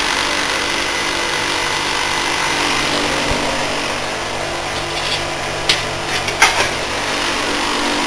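Heat-pump air conditioner's Fujitsu General compressor and fan motor running steadily, a low hum with a rush of air, the compressor working as its head pressure comes up. A few sharp clicks and knocks come about five to six and a half seconds in.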